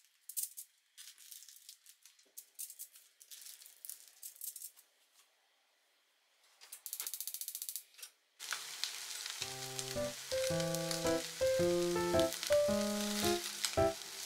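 Shishamo frying on aluminium foil in a frying pan: scattered light crackles and clicks at first, then a steady sizzle from about eight seconds in, under background music.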